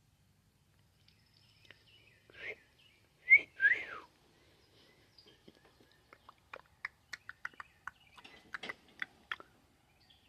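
A cat meowing three times, the last meow sliding down in pitch, followed a couple of seconds later by a run of about a dozen sharp clicks. Faint bird chirps behind.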